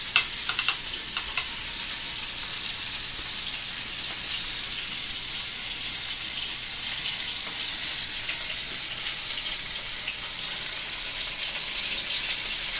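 Shrimp sizzling in a frying pan of hot achiote oil. A few sharp crackles come in the first second or so as they go in, then a steady sizzle that grows slightly louder.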